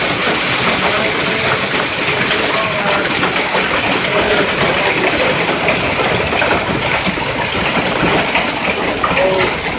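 Heavy rain with hail, pelting wet pavement and parked cars: a loud, steady hiss of countless small impacts.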